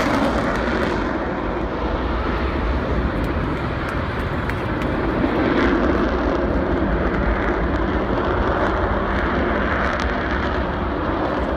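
Jet engine noise of Blue Angels F/A-18 Hornets in flight, a broad rushing sound that eases over the first two seconds and swells again about five to six seconds in.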